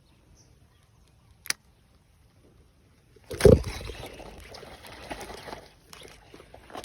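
A sharp click, then a loud splash in water about three and a half seconds in, followed by continued uneven sloshing and splashing.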